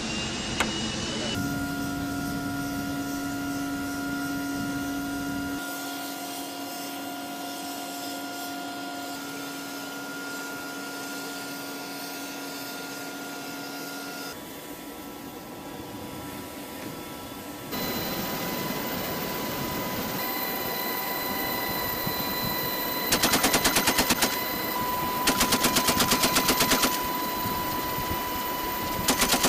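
Helicopter engine noise with a steady whine and level tones, then two bursts of fire from a door-mounted GAU-18 .50-calibre machine gun, each about a second and a half of rapid shots, with a third burst starting at the very end.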